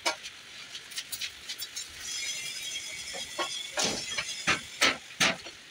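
Sharp metallic clicks and clinks at an uneven pace, with a brief hiss about two seconds in and a few louder clicks near the end.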